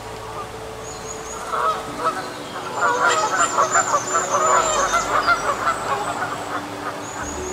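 Waterfowl calling in a rapid run of short calls, several a second, building about two seconds in and loudest through the middle.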